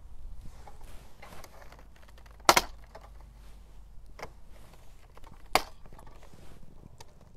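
Handling clicks and knocks as a camera or phone is adjusted to zoom in, with two loud sharp clicks about three seconds apart and a few lighter ones, over a faint low hum.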